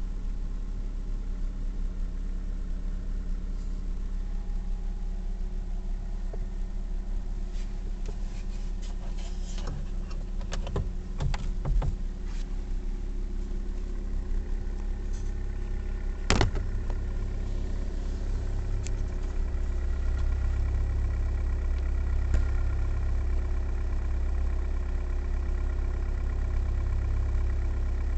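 Hyundai Solaris 1.4 four-cylinder petrol engine idling while it warms up from cold, with the knock the owner hears during cold warm-up, which the Hyundai dealer calls normal engine operation. A few light clicks come around a third of the way in and a single sharp knock just past halfway, and the low engine hum grows louder about two-thirds of the way through.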